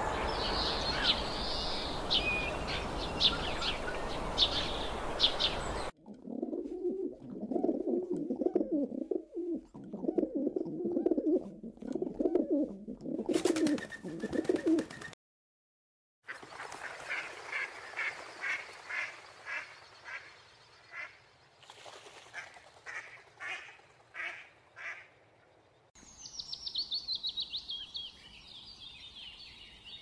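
A string of separate bird-call recordings cut together: chirping over a steady hiss, then several seconds of low warbling calls, a brief silence, a run of evenly spaced calls at about two a second, and near the end a high trill that falls in pitch.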